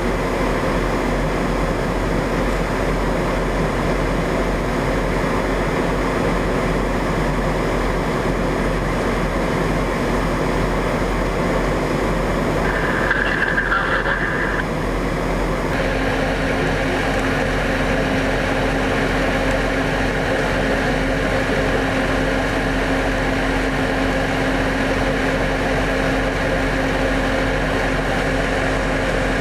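Steady engine noise from idling military vehicles, with a brief higher tone about halfway through.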